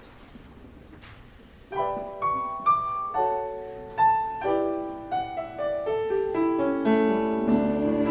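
Piano starts playing about two seconds in after a low room murmur, struck notes and chords that build fuller: the introduction to a song.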